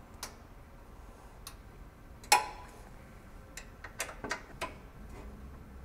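Scattered metal clicks and taps of a hand tool turning screws into a steel printer-stand bracket, with one sharper clink and a short ring a little over two seconds in and a quick run of ticks about four seconds in.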